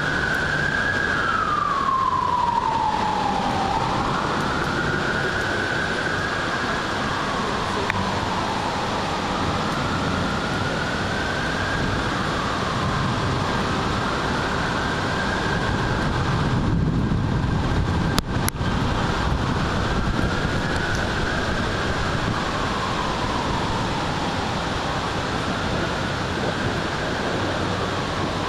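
An emergency vehicle siren wailing in the distance, rising and falling slowly every four to five seconds and growing fainter, over the steady hiss of storm rain. A brief sharp click about two-thirds of the way through.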